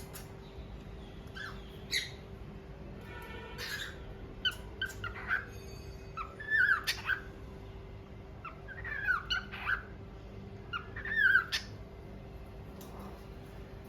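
Cockatiel chirping and whistling in short, scattered calls, several of them sliding in pitch, over a faint steady hum.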